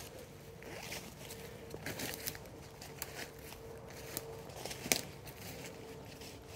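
Footsteps through dry fallen leaf litter on a forest floor: irregular rustling and crackling steps, with one sharper snap about five seconds in.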